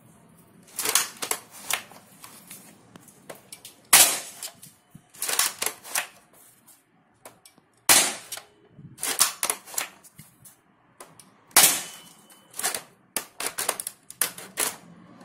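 Homemade spring-powered airsoft SVD Dragunov rifle firing, three loud sharp cracks about four seconds apart, with runs of smaller clicks and clatter between the shots as it is handled and recocked.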